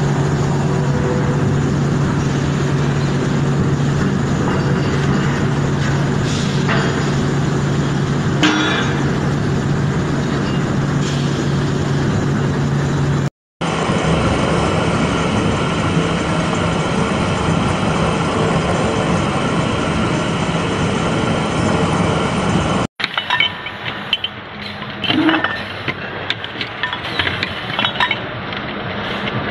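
Factory machine noise in three shots. First a steady rushing noise with a low hum while a crucible sits in a glowing coal furnace. Then a drill motor's steady whine as the bit cuts into an aluminium plate. Last, irregular metallic clicks and clanks from a press fitting a part into an aluminium housing.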